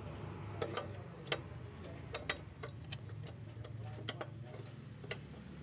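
A truck's rear drum-brake adjuster being pried notch by notch with a flat bar through the backing-plate slot, clicking as it turns to loosen the brake shoes. The clicks are sharp and irregularly spaced, about ten of them, over a low steady hum.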